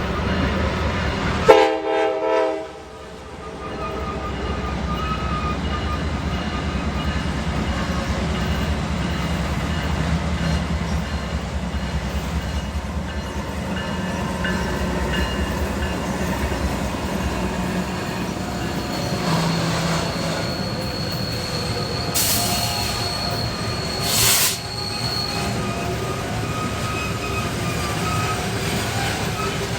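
Norfolk Southern train rolling down a steep grade with a steady low rumble of wheels on rail. A brief loud multi-tone sound comes about a second and a half in. From about 18 to 25 seconds a thin, high, steady squeal rides over the rumble, the kind of sound the uploader calls a very creepy, unusual noise coming from the train.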